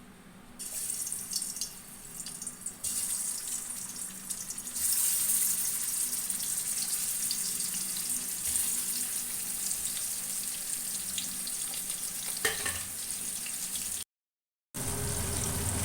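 Pieces of fish, marinated in salt and turmeric, sizzling as they are laid into hot mustard oil in a kadai. The sizzle starts about half a second in and jumps louder twice in the first five seconds as more pieces go in, then carries on steadily. It cuts out briefly near the end.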